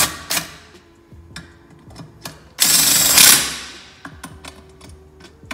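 Cordless drill driving a bolt into the aluminium supercharger housing through a long socket extension, running in a short burst at the start and a longer, louder burst of about a second in the middle, with small clicks of the socket and bolt between.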